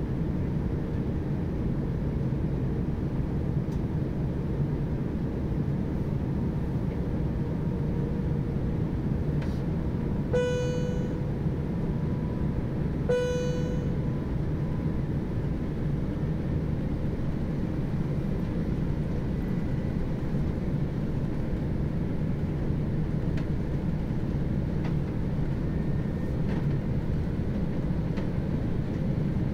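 Steady low rumble of airliner cabin noise in an Airbus A350-900 on approach. Two short ringing chimes, the cabin chime sound, come about 10 and 13 seconds in, about three seconds apart.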